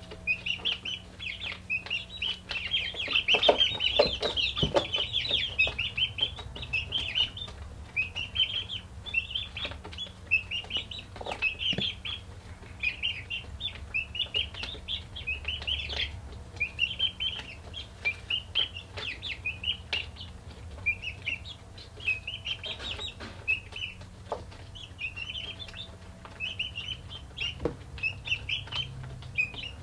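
Young chickens peeping in a brooder: a continuous stream of short, high chirps, several a second, busiest a few seconds in. A few soft knocks and a steady low hum sit underneath.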